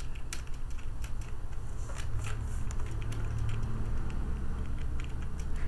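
Computer keyboard typing: scattered keystroke clicks at an uneven pace, over a low steady hum.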